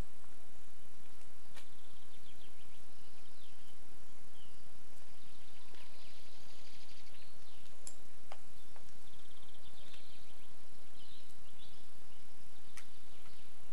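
Outdoor summer ambience: high chirps and short fast trills repeating through, over a steady low background noise, with a few sharp clicks.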